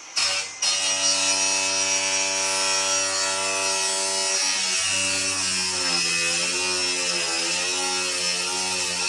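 Small electric power tool motor running steadily on sheet-metal HVAC duct, its pitch sagging and wavering for a second or two about halfway through as it comes under load.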